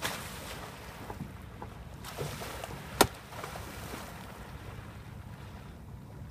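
Humpback whale surfacing close by: a sudden rushing burst of spray as it breaks the surface, then water washing over its back. About three seconds in there is one sharp knock, the loudest sound. Wind rumbles on the microphone throughout.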